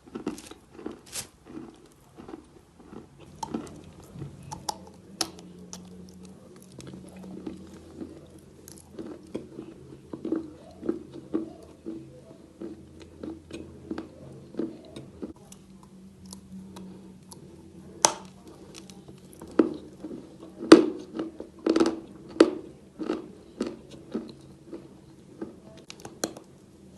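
Chalk being bitten and chewed close to the microphone: a run of irregular, sharp crunches and crackles, with a few louder bites past the middle.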